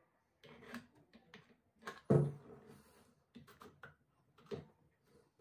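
Metal parts of a homemade pipe-built .22 pistol being handled and set down on a workbench: a series of short knocks and clatters, the loudest about two seconds in.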